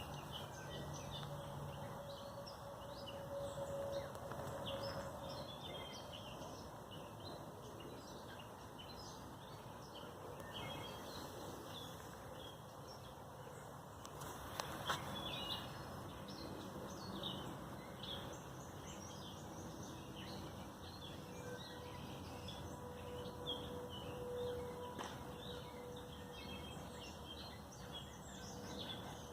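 Outdoor garden ambience: small birds chirping and calling over and over, scattered through a steady background hiss.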